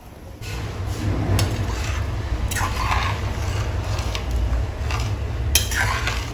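Metal ladle stirring chicken and soaked rice in hot water in a stainless steel pressure cooker, with a few sharp knocks of the ladle against the pot and a steady low rumble underneath.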